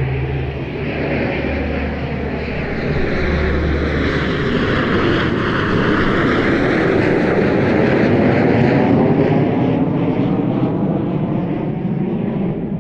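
Jet noise from four Kawasaki T-4 twin-turbofan jet trainers flying over in formation. The steady roar swells to its loudest about seven to nine seconds in as they pass overhead, then begins to fade.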